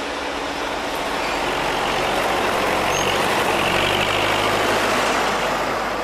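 Heavy truck engine running while it hauls a log on a chain over dirt, with a steady low hum under a rough, noisy rumble. It swells to its loudest around the middle and eases off near the end.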